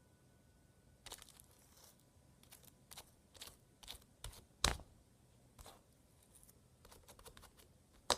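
Homemade slime being pulled and squished by hand: irregular small crackles and sticky pops starting about a second in, with one louder thump a little under five seconds in.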